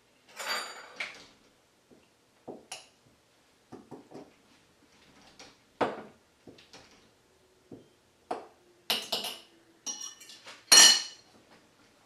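Dishes and utensils clinking and knocking: a string of separate knocks and clinks, some ringing briefly, the loudest a sharp clink near the end.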